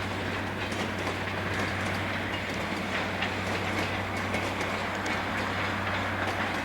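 Southern Pacific freight train rolling past at close range: a steady low hum under the rumble of the cars, with wheels clicking over the rail joints.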